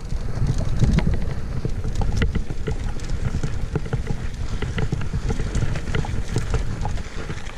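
Mountain bike rolling fast along a dirt track: tyres crunching over the loose surface with rapid, scattered clicks and rattles from the bike, over a low rumble of wind buffeting the microphone.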